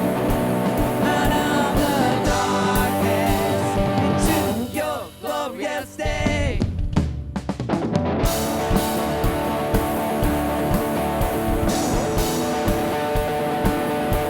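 Live worship band music with guitars and a steady drum beat. The band thins out and drops in level for a few seconds about a third of the way in, then comes back in full.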